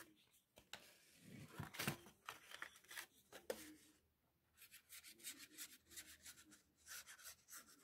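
Faint rustling and rubbing of cardstock being handled, then a run of light scratchy ticks as the fine nozzle of a glue bottle is drawn along the paper's edge.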